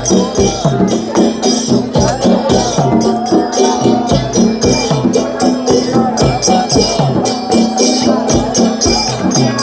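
Loud music with a steady drum beat, shaker-like percussion and a held drone underneath, with a melody or voice moving over it.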